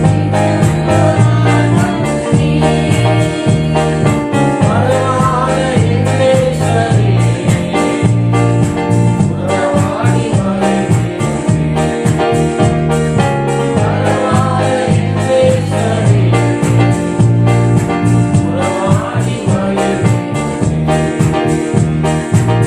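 Christian worship music played on an electronic keyboard over a steady beat, with a melody line that rises and falls every few seconds.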